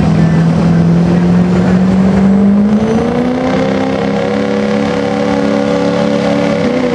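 Diesel pickup truck engine revving hard at a high, steady pitch. About three seconds in the pitch steps up and holds there.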